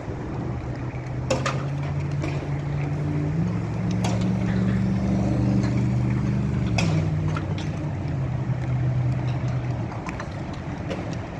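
Steady hailstorm noise with a few sharp hailstone knocks, under a vehicle engine running. The engine's pitch rises about three seconds in and drops back near seven seconds, then fades out near the end.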